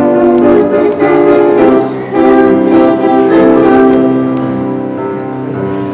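Electronic keyboard with a piano sound playing an instrumental passage of a children's song, in sustained chords that grow softer near the end.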